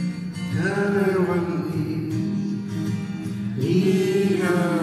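A girl singing long held notes in Arabic-style song over an acoustic guitar played by an accompanist, the two held notes starting about half a second in and about three and a half seconds in.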